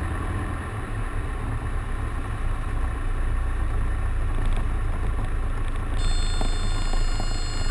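A Grumman Tiger's Lycoming four-cylinder engine at idle, a steady low drone under wind noise as the airplane flares over the runway to land. About six seconds in, a thin, steady, high-pitched tone joins it.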